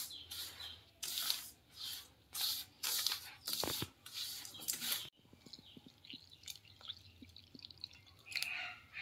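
A hand rubbing and squeezing dry flour, rice flour and semolina in a stainless steel bowl: soft rustling strokes, about two a second, for the first five seconds, then fainter crackling. Near the end, milk pours into the dry mix.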